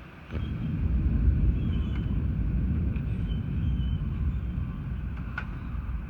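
Thunder rumbling: a deep roll that starts suddenly about a third of a second in and slowly fades.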